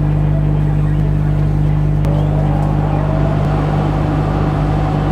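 Laser cutting machine running as it cuts a logo out of an acrylic sheet, making a loud, steady mechanical hum. A faint tone rises about two seconds in.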